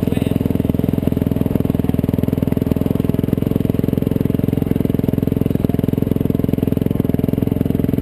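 Yamaha YZ450F motocross bike's single-cylinder four-stroke engine running at low, steady revs as the bike is ridden slowly, heard close up from the bike itself.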